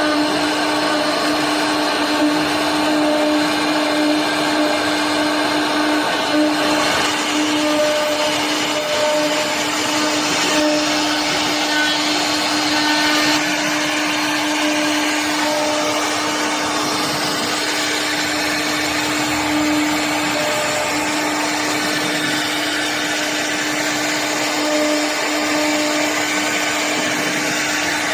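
CNC router spindle running at a steady pitch while its bit cuts into wood, a constant whine over a continuous rushing cutting noise.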